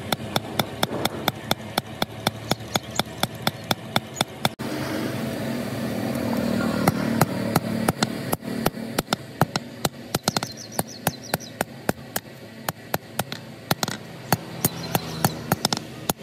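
Hand hammer striking a sickle blade held in tongs on a small steel anvil: rapid, even blows about four a second, broken off about four and a half seconds in and then going on less evenly. A steady rushing background noise is underneath for a few seconds after the break.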